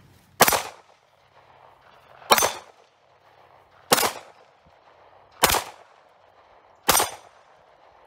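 Star Model BM 9mm pistol firing five single shots, paced about a second and a half to two seconds apart.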